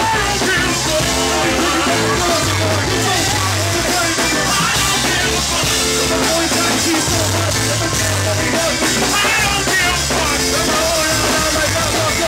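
Live band music played loud: drums and sustained bass notes under a vocal line into a microphone, with keyboard on stage.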